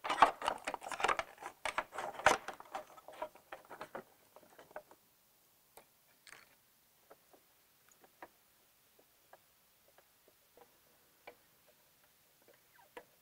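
Light clicks and rustles of a carbon-fibre cover panel being handled and pressed into place on a motorcycle's front fairing, busiest for the first four seconds. After that come only a few faint scattered ticks while the panel is screwed down.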